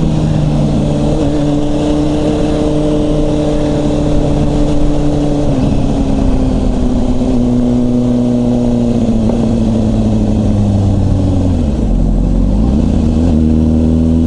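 Motorcycle engine running under way, mixed with rushing wind on the microphone. The engine pitch sinks gradually about halfway through. Near the end it dips sharply and climbs back within about a second.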